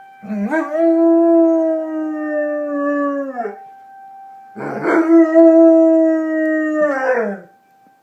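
German Shepherd howling: two long howls, each holding its pitch and then falling off at the end, the second starting about a second and a half after the first. A steady tone runs underneath, the tornado siren the dog is howling along with.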